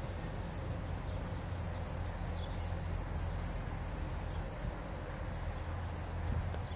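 Outdoor ambience: a steady low rumble under many faint, very high-pitched chirps.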